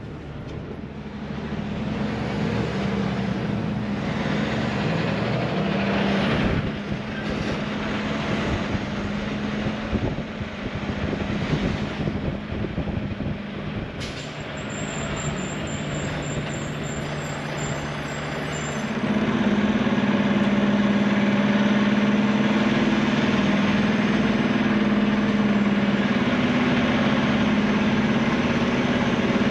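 Kenworth semi truck's diesel engine running at low speed. A little past halfway its note becomes louder and steadier.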